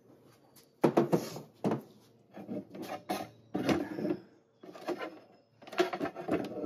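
Handling noise: a string of about six short knocks, clicks and rustles as hand tools are moved about and put down.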